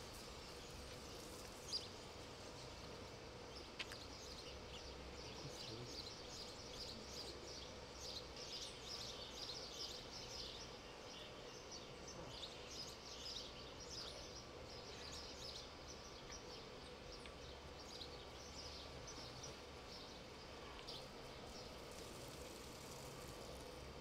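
Faint outdoor ambience of birds chirping in many short, high notes over a steady low hum, with two sharp clicks in the first few seconds.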